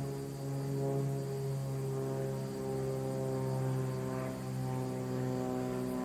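A steady, low engine drone with many even overtones, its pitch wavering slightly.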